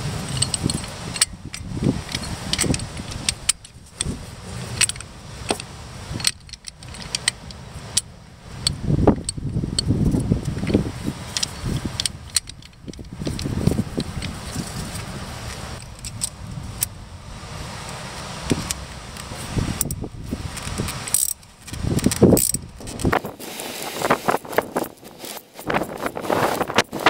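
Metal clinking, rattling and scattered clicks of a brake caliper piston wind-back tool as its adapter, plate and screw are fitted against a rear disc brake caliper piston and handled.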